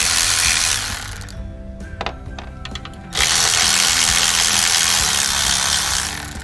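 A handheld power tool running in two bursts, the first ending about a second in and the second lasting about three seconds, as it backs out the valve cover bolts. A few sharp clicks of small metal parts come in the gap between the bursts.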